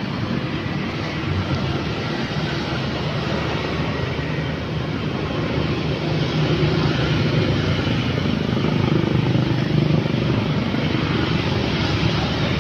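Road traffic: motorcycles and cars passing, a steady mix of engine hum and tyre noise that swells a few times as vehicles go by close.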